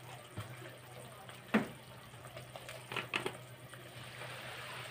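Potatoes and kohlrabi cooking in oil and a little water in a kadai, after spices have been added: a faint steady sizzle, with a few sharp clicks about a second and a half in and twice around three seconds in.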